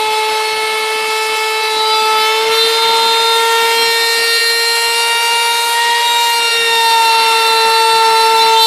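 Wood router spindle on a CNC machine running at high speed with a steady high whine while its bit mills wood; the pitch steps up slightly about two and a half seconds in.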